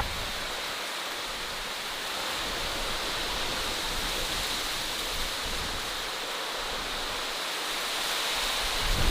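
Steady, even rushing noise with no distinct hits, rising slightly in level near the end.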